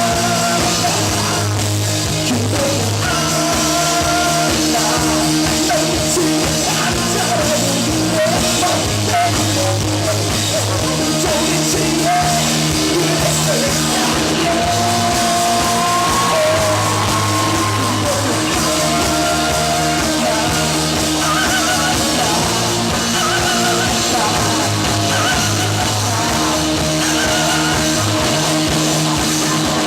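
Live rock band playing, with a male lead vocal singing held notes over drums, bass and guitars, recorded from the club floor.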